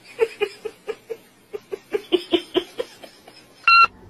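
A person laughing in a run of short, rapid giggles, about four or five a second. Near the end there is a short, loud electronic beep.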